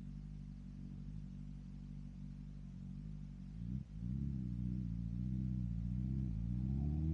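2022 BMW S1000RR's inline-four engine running through an M4 aftermarket exhaust, idling steadily, then about four seconds in a brief dip and the revs rise and waver before climbing steadily and getting louder near the end as the bike pulls away.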